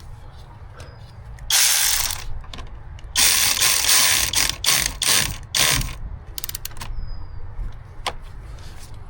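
Hand ratchet wrench clicking in three quick runs of strokes, with a few single clicks after, as the car battery is fastened back in.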